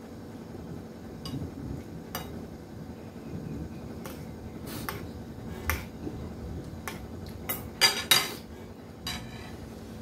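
Metal spoon and fork clinking and scraping against a ceramic plate while serving and eating. There are about ten separate clinks, and the loudest come in a quick cluster about eight seconds in.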